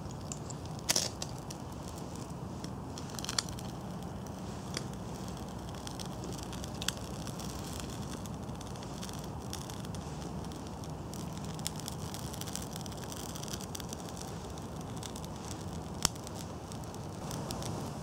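Birch bark and thin kindling burning with a crackle and a handful of sharp pops, the strongest near the end, as flame takes inside a split pine log stove.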